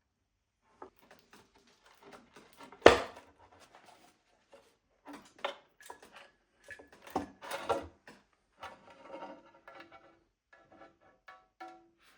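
Bolts and small metal parts clinking and knocking as they are handled and set down on a work table, with one sharp knock about three seconds in and a few short metallic rings near the end.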